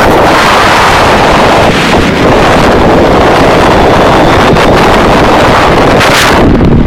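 Heavy wind rush buffeting the microphone of a phone carried on a sport motorcycle at speed, loud and distorted, with the motorcycles' engine and road noise mixed in.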